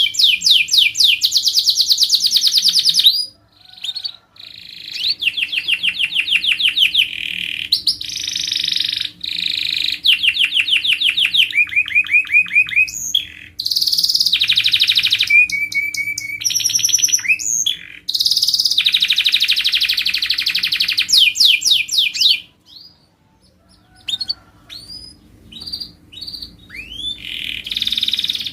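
Domestic canary singing: long phrases of fast, evenly repeated high trills and rolls, changing syllable type every few seconds, broken by brief pauses about three seconds in and near the end. A faint steady hum runs underneath.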